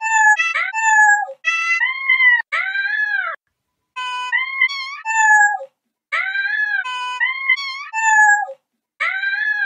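Domestic cats meowing, separate meow clips edited one after another so their pitches carry a sung melody with no backing music. The meows come in phrases of several short rising-and-falling notes, with brief dead silences between phrases.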